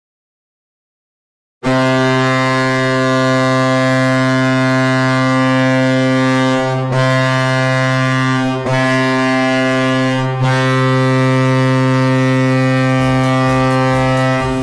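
Hockey arena goal horn, a deep air horn, sounding one long loud blast that starts about a second and a half in and is broken briefly three times.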